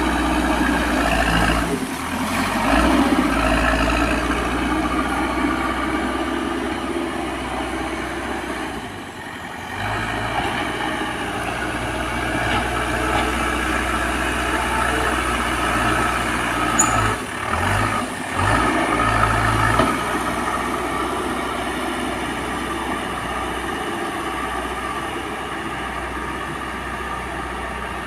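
Caterpillar backhoe loader's diesel engine running under work, a steady low drone that dips briefly a few times as the load changes.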